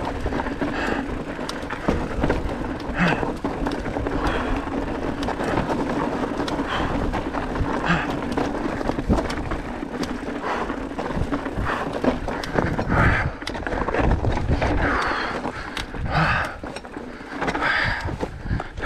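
Enduro mountain bike riding over a trail of loose rocks: tyres crunching over stones and the bike rattling, with many sharp knocks over a continuous rumble.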